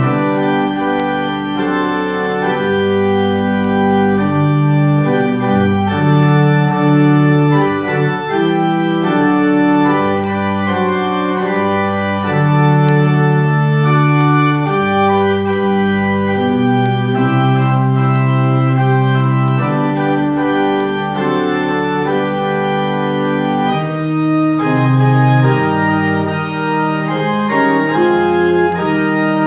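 Pipe organ playing slow, sustained chords that change every second or two.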